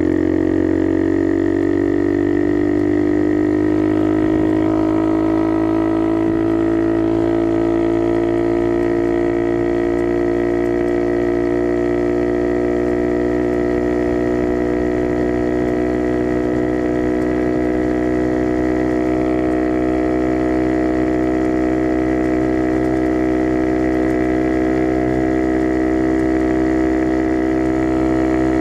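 Skyteam Dax minibike's single-cylinder engine through a custom NHRC carbon exhaust, running as a steady drone at a constant cruising speed. Its pitch climbs slightly over the first several seconds, then holds.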